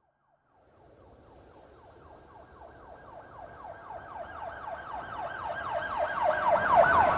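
Police car siren in a fast yelp, its pitch sweeping up and down several times a second, starting after a brief silence and growing steadily louder.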